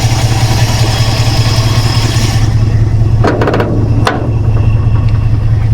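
Holden 304 V8 idling steadily, with a miss that the owner puts down to a spark plug or one cylinder. About three seconds in come a few sharp clicks and knocks over the engine.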